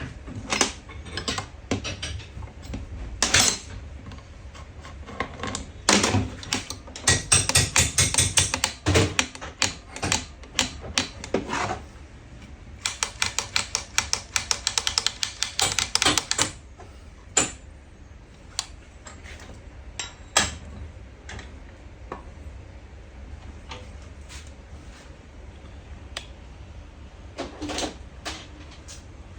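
Metal parts and hand tools clicking and knocking on a workbench, with two runs of rapid clicking, about a quarter of the way in and again around the middle, and scattered single knocks in between.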